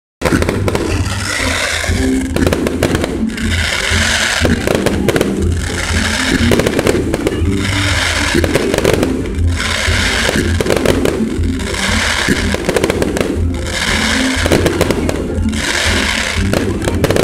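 Aerial fireworks bursting overhead: a dense, continuous crackling and popping from many shells at once, surging in waves about every two seconds.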